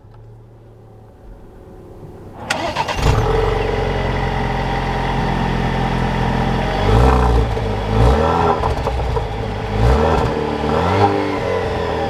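Cold start of a 2.0-litre turbocharged four-cylinder engine (Alfa Romeo Giulia Sprint) heard at the dual tailpipes: after a faint hum, the engine fires about two and a half seconds in with a brief flare, then settles to a fast idle. Several short revs rise and fall over the idle in the second half.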